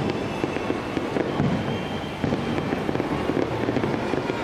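3-inch aerial firework shells bursting over and over in quick succession, a dense run of pops and crackling with a rapid string of pops from about two seconds in.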